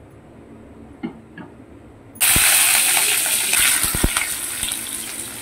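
Sliced onions dropped into hot oil in a kadai: a sudden loud sizzle breaks out about two seconds in and keeps crackling, slowly easing, with a few soft knocks before it and low thumps as the onions land.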